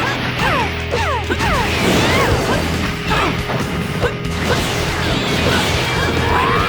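Animated fight sound effects, a rapid string of whooshes and hits with quick falling swishes, over a steady background music score.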